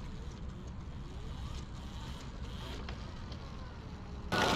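OSET electric trials motorcycle's motor whining faintly at a distance, its pitch rising and falling with short throttle blips, over a low rumble of wind on the microphone. Near the end the sound jumps suddenly much louder.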